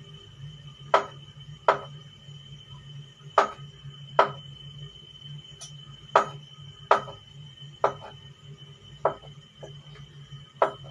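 Kitchen knife chopping through banana onto a cutting board: about nine sharp knocks at an uneven pace, often in pairs. A steady low hum and a faint high whine run underneath.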